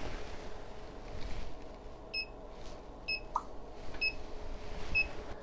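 MS5910 RCD loop tester's alarm beeping, four short high beeps about once a second starting about two seconds in. It signals a trip time over 300 ms: the 10 mA type AC residual-current switch did not trip at half its rated residual current.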